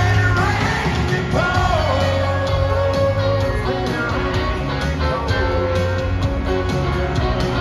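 Live country band music heard from the crowd in an arena: a full band with guitars, bass and drums, carrying a long held melody line.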